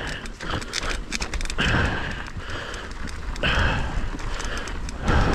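A mountain-bike rider breathing hard and rhythmically while descending, one loud breath about every two seconds. Underneath are many quick clicks and rattles from the bike jolting over a rocky trail, and a steady low rumble.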